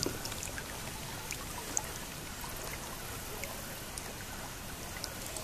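Lake water trickling and lapping quietly around a kayak, a steady soft wash with a few small drips or ticks scattered through it.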